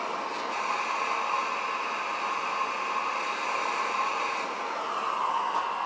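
Propane torch flame burning with a steady hiss while heating a rifle's threaded muzzle device toward 400 degrees.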